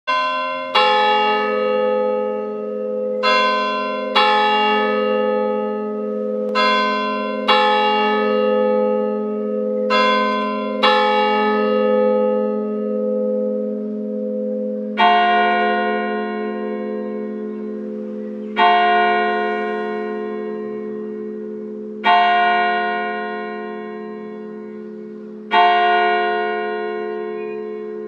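Church bells ringing. In the first half the strokes come in quick pairs, two different notes a second apart, every few seconds. About 15 s in it changes to single slow strokes of a lower-sounding bell, one every three and a half seconds, each ringing on long.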